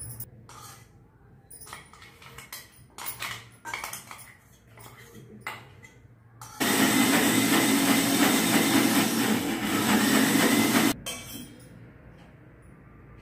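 A spoon scraping and clinking against a steel mixer-grinder jar and pot as batter is scraped out, then an electric mixer grinder runs steadily for about four seconds and cuts off suddenly.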